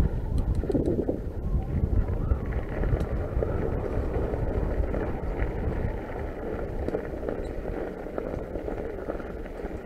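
Norco Fluid FS3 full-suspension mountain bike riding over a dirt and gravel trail: steady tyre and ride noise with a low rumble and a few small rattles, somewhat louder in the first half.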